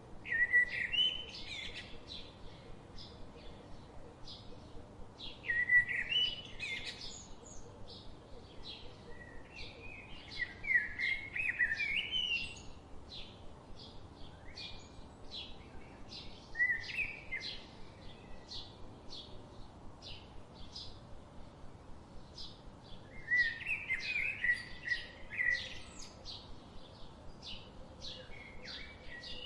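Songbirds singing: short warbling phrases come in bursts every few seconds, over a steady run of brief, repeated chirps about two a second.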